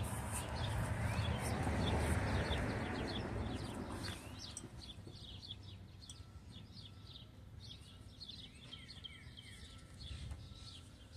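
A raised car wheel, with its tyre and brake disc, spinning freely on its hub: a soft whir that fades away over about four seconds, with no brake squeal. Birds chirp throughout.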